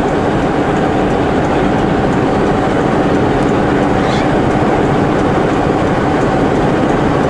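Semi truck's diesel engine running steadily with road and tyre noise, heard from inside the cab while driving.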